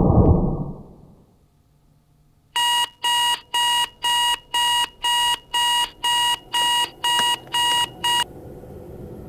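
Elgin digital alarm clock beeping: about a dozen short, steady, high beeps at roughly two a second, cut off abruptly near the end when a hand comes down on it. Before it, in the first second, a low rumbling swell fades away.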